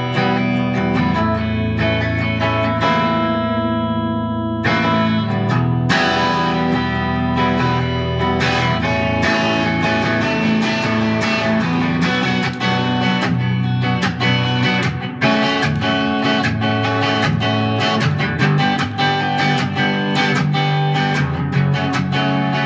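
Single-cutaway solid-body electric guitar played through an amplifier: a chord left ringing, then strummed chords and picked notes from about five seconds in.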